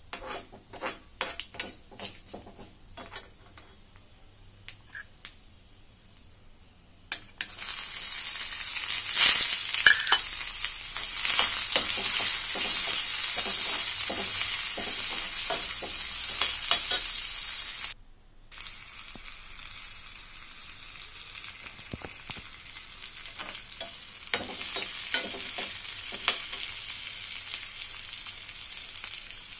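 Sliced onion frying in hot oil in an iron kadai: scattered sharp clicks for the first several seconds, then a loud sizzle that starts suddenly about seven seconds in as the onion meets the oil. After a brief dropout past the middle, the sizzle goes on more quietly with a steel spatula stirring and scraping the pan.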